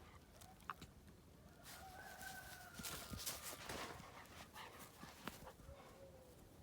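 Dogs playing, mostly quiet: a faint drawn-out dog whine about two seconds in, a shorter one near the end, and a few light scuffs.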